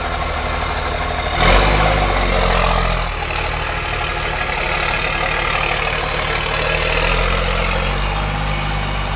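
Vehicle engines idling, with a sudden loud burst about a second and a half in that raises the low engine note for a second or so.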